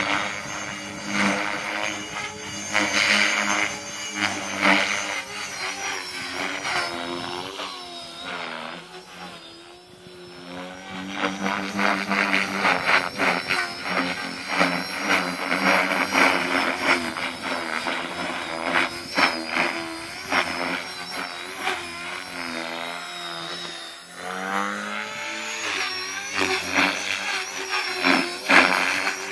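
Align T-Rex 450L Dominator electric RC helicopter being flown hard: motor whine and rotor blade chop that keep sweeping up and down in pitch and loudness as it manoeuvres, dropping away twice before coming back.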